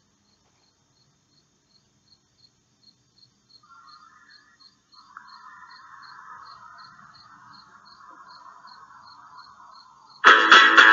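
Crickets chirping steadily, about three high chirps a second, with a faint rushing noise joining about four seconds in. Near the end, loud music with strummed guitar cuts back in.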